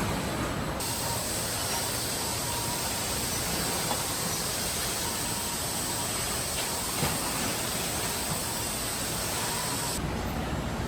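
Truck assembly-plant floor noise: a steady hiss over a low machinery rumble, with a few light knocks. The hiss comes in about a second in and stops sharply near the end.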